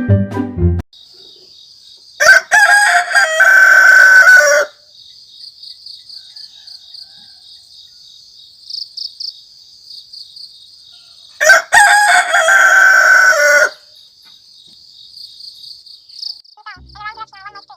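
A rooster crowing twice, about nine seconds apart, over a steady high chirring of crickets.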